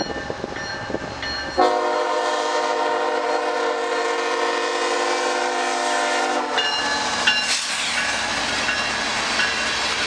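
Canadian Pacific ES44AC locomotive's horn sounding one long blast of about five seconds, a chord of several notes. A crossing bell dings steadily throughout, and once the horn stops the train's running noise rises as the lead locomotive reaches the crossing.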